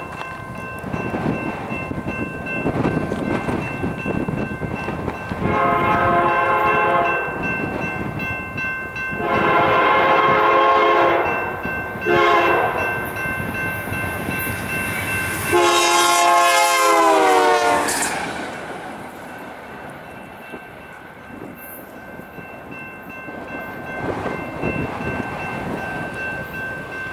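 A BNSF freight locomotive's air horn sounds the grade-crossing signal: two long blasts, a short one and a final long one that drops in pitch as the locomotive passes. Low rumble and wind noise run underneath.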